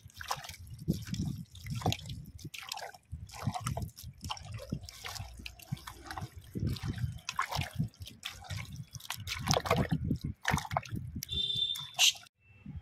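A hand mixing raw meat pieces with turmeric in a metal pot: irregular wet squelching and slapping as the meat is squeezed and turned.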